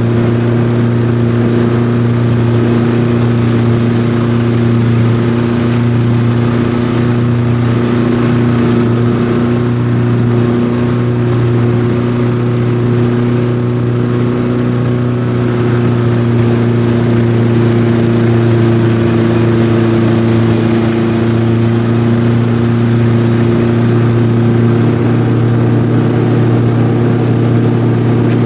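Tow boat's engine running at a steady speed, a constant low drone that holds its pitch throughout, over the rush of water from the boat's wake.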